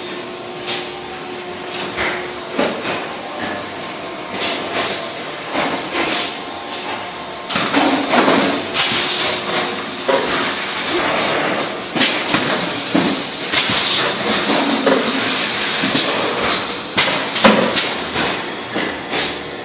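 Industrial machinery running: irregular clanks and knocks over a steady hiss of air, growing louder and busier partway through.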